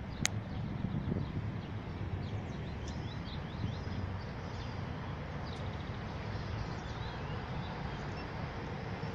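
Birds chirping in short, repeated high calls over a steady low rumble of outdoor background noise, with one sharp click just after the start.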